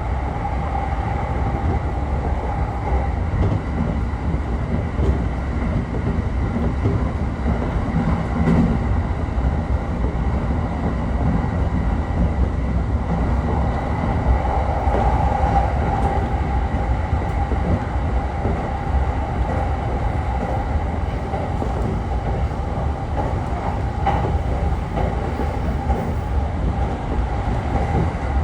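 Interior running noise of a JR East commuter electric train under way: a steady low rumble of the wheels on the rails with a steady hum running through it, and a few faint knocks.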